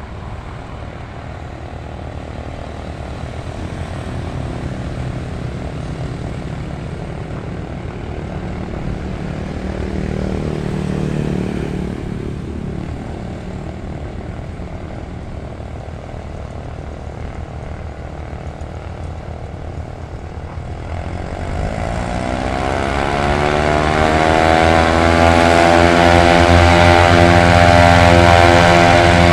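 Piper Seminole's twin piston engines and propellers running with a steady drone, then opening up about two-thirds of the way through: the pitch climbs and the sound grows much louder as power is brought up.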